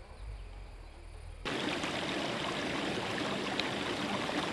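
A small rocky stream running and splashing over boulders, a steady rush of water that cuts in abruptly about a second and a half in, after a faint low rumble.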